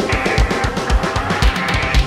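Background music: fast, heavy rock with a steady drum-kit beat and electric guitar.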